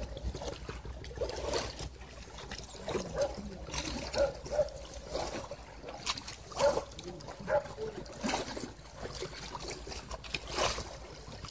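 Water splashing and trickling as oars dip into calm water, in irregular strokes, with short pitched sounds mixed in.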